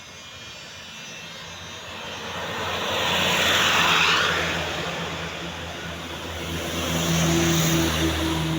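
Large tour buses driving past one after another in a convoy, their engine and tyre noise swelling and fading. The loudest pass comes about four seconds in, and a second bus comes up near the end with a steady low engine drone.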